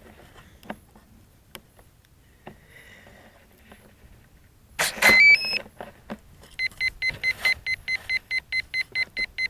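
Electronic speed controller (ESC) of a P1600 electric RC plane powering up: a short rising three-note chime, then a steady high beep repeating about four times a second. The ESC is signalling some fault that the owner cannot identify.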